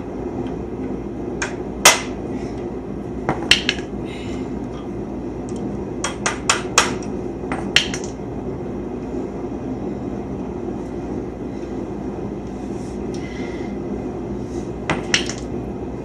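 Sharp metallic taps and clinks of hand tools on steel chassis parts, some single and some in quick clusters of two to five, scattered over a steady low hum.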